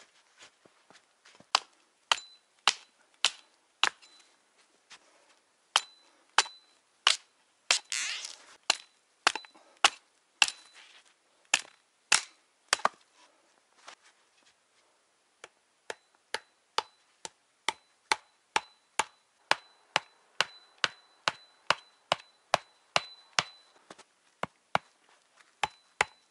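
Wooden stakes being hammered into the ground: steady sharp blows about two a second, many leaving a brief ringing note, with a pause of a couple of seconds around the middle.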